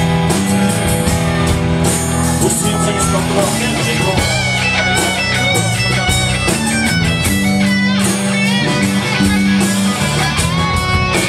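Live rock band playing an instrumental passage: drums and bass under an electric guitar playing a melody, its notes stepping up and down from about four seconds in.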